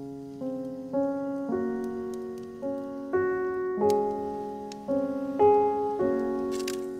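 Background music: a gentle piano-like keyboard melody, a new note about every half second.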